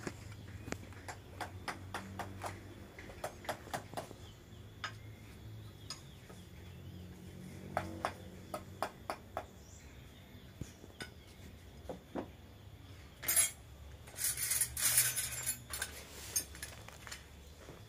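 Carving chisels working a wooden barongan mask by hand: scattered sharp ticks and taps as the blade cuts into the wood. About thirteen seconds in comes a louder clatter of the metal carving chisels being picked through where they lie on the floor.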